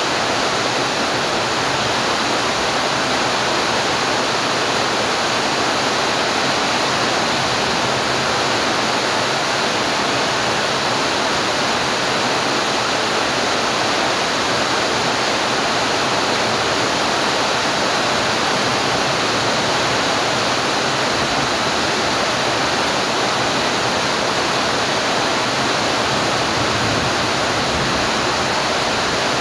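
Steady heavy rain: a dense, even hiss with no distinct drops or pauses.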